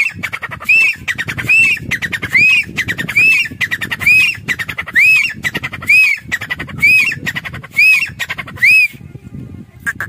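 Grey francolin (teetar) calling loudly from a perch: a repeated series of ringing, arched rise-and-fall notes, a little under one a second, each linked by a fast rattling run. The calling stops about nine seconds in.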